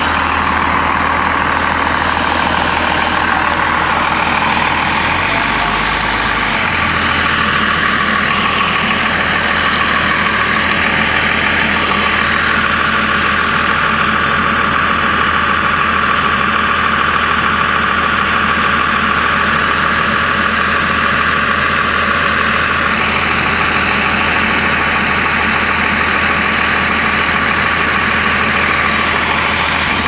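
Cummins ISC diesel engine of a Blue Bird CS transit bus idling steadily, heard close behind the bus, with a steady high whine over it through most of the stretch.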